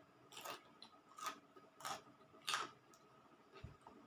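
Faint wet mouth clicks and smacks of a person chewing papaya salad, a sharp click roughly every half second for the first few seconds. A soft low thump comes near the end.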